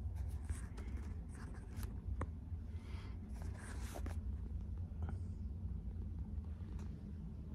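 Handling noise from a hand-held phone camera being moved around: irregular rubbing and scraping with a sharp click about two seconds in, over a steady low hum.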